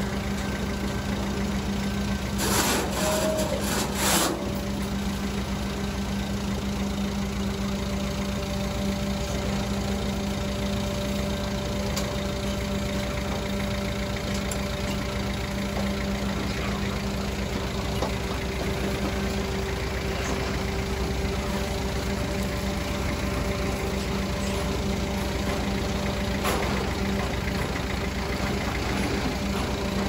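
Truck engine idling steadily, a constant low hum. A few short knocks come about three to four seconds in.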